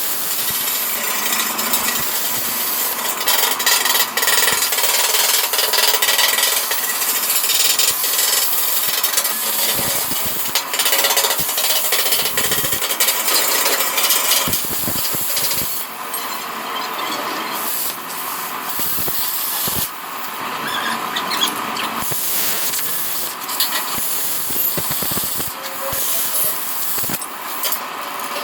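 Plasma cutter cutting steel: a loud, continuous hissing rush with irregular crackle, dipping briefly a few times.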